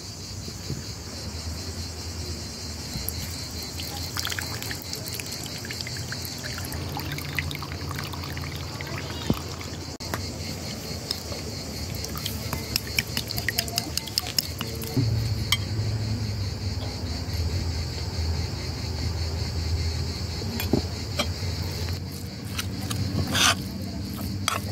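Metal spoon stirring a thin sauce in a ceramic bowl, with light clinks against the bowl and liquid sloshing and dripping, over steady cricket chirring. Near the end a spoon scrapes and clatters in a metal frying pan.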